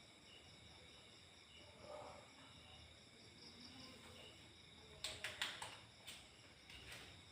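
Faint insect chirping, a short high chirp repeating about twice a second, with a quick cluster of sharp clicks and knocks about five seconds in.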